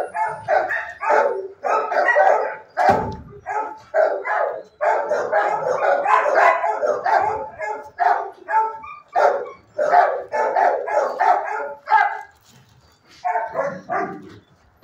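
Shelter dogs barking in rapid, near-continuous runs of several barks a second, with a brief lull about twelve seconds in.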